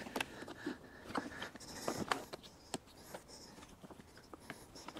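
Clicgear Model 8.0+ four-wheel golf push cart being unfolded: a string of sharp clicks and knocks from its folding frame and latches as the handle is unhooked, the frame is pulled up and it clicks into place, the loudest about two seconds in.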